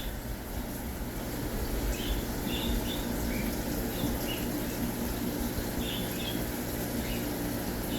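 Caged birds chirping in short, high calls scattered every second or so, over a steady low background hum.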